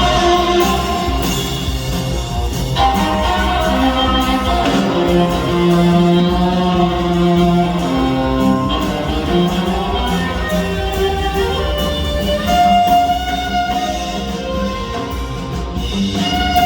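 Live band playing an instrumental passage: held melodic notes that change every second or two over a steady low accompaniment, with no singing.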